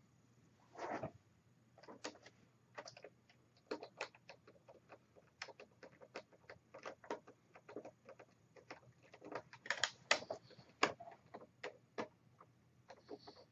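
Irregular small clicks and taps from handling a laptop screen's metal mounting brackets and screws, with a louder knock about a second in.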